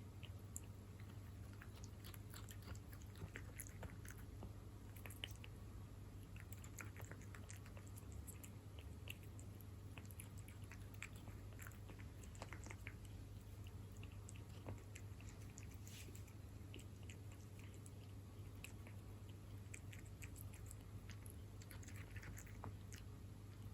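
A cat chewing and lapping chicken-in-jelly wet cat food: faint, irregular small smacks and clicks, with a steady low hum underneath.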